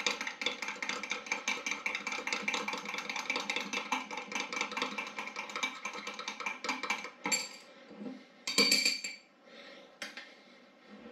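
Melted glycerin soap base being stirred, the utensil clinking rapidly and steadily against the sides of the container. The clinking stops about seven seconds in, followed by a few separate louder knocks and clatters, the loudest about eight and a half seconds in.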